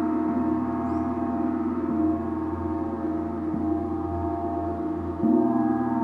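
Gong played with soft, repeated mallet strokes about every second and a half, its deep tones sustaining and overlapping in a continuous ringing wash. A louder stroke lands about five seconds in.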